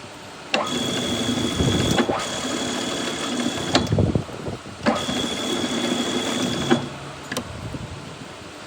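Metal lathe taking two thread-cutting passes, each running two to three seconds with a steady high whine and a lower hum. Each pass starts and stops abruptly with a click, leaving a quieter hum between and after them.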